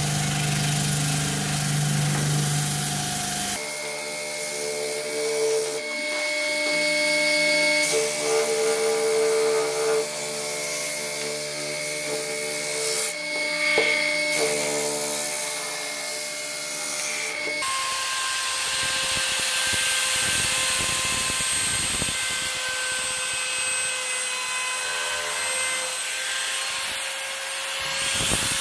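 Electric motor running with a sanding disc on its shaft while the edge of a round oak and epoxy resin panel is sanded against it. The sound changes abruptly a few times.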